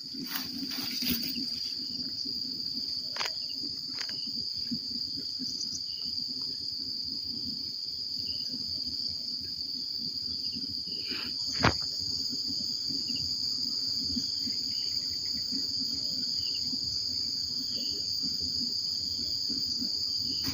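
A steady, shrill chorus of insects holding one high pitch without a break. Over it are a few sharp knocks, the loudest about halfway through.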